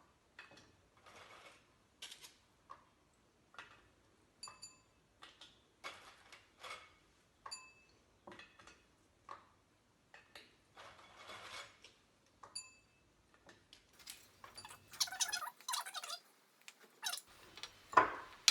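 Kitchen handling sounds as sponge biscuits are dipped in pineapple juice and laid in a dish: scattered soft taps and clicks, a few short ringing clinks of glass or crockery, and a sharp knock near the end.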